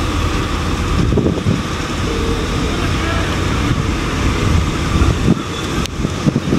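Steady low outdoor rumble, with a few short knocks near the end.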